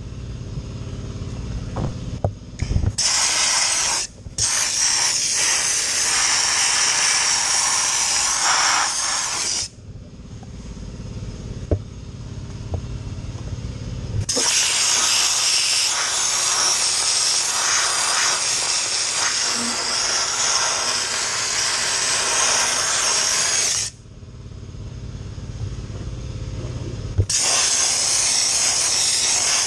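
Dry ice blaster nozzle blasting with compressed air, a loud steady hiss, triggered in three long blasts with a few short bursts early on. A lower steady hum carries on in the pauses between blasts.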